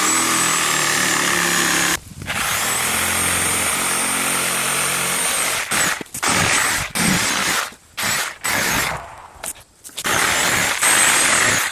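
Reciprocating saw (Sawzall) with a long 12-inch blade cutting through dense stump roots. It runs in two long stretches, then in shorter start-and-stop bursts through the second half.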